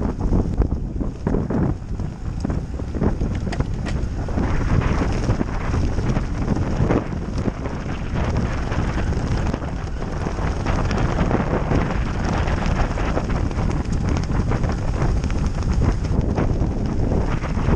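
Wind buffeting the microphone of a cyclist riding a road bike at speed: a steady, loud, low rushing noise with constant flutter.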